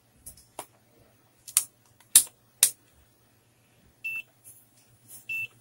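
Digital multimeter giving two short high beeps about a second apart near the end, as it is switched from resistance to diode-test mode. Before that, a few sharp clicks.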